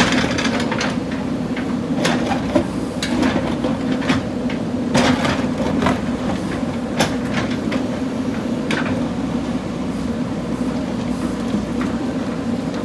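JCB backhoe loader's diesel engine running steadily while the machine works, with irregular sharp knocks and clanks over it.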